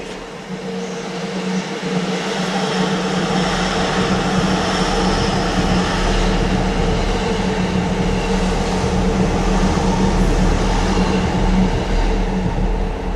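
Electric train running on the Chuo Line out of view: a steady rail rumble with a low hum, building over the first couple of seconds and easing near the end.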